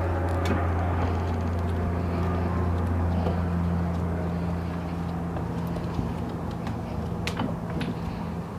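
Footsteps on wooden boardwalk planks, a few sharp knocks near the end, over a steady low rumble.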